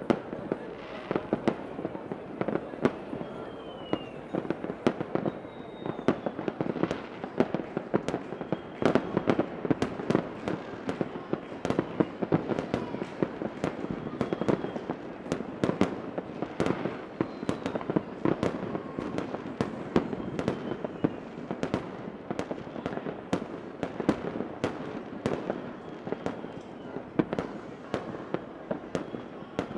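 Fireworks going off continuously: many sharp bangs and crackling pops in quick, irregular succession, with a few faint short whistles.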